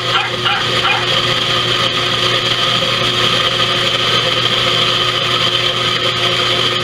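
Electric coffee grinder running steadily and noisily, grinding dried beans, peas and rice into powder.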